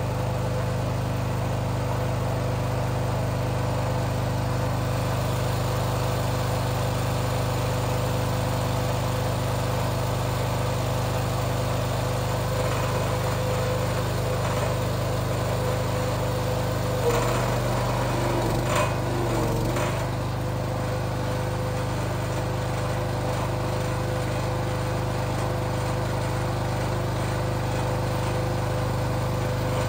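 Small gas engine of a hydraulic log splitter running steadily. About 17 seconds in its note dips and shifts for a few seconds, with a couple of sharp knocks, before settling back to a steady run.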